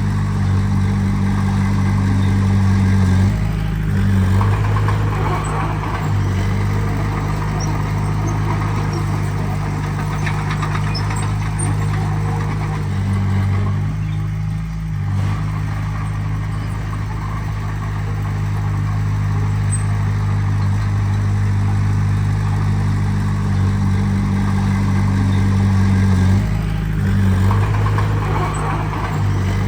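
Heavy-equipment diesel engine running steadily, its engine note changing briefly a few times as the load or throttle shifts.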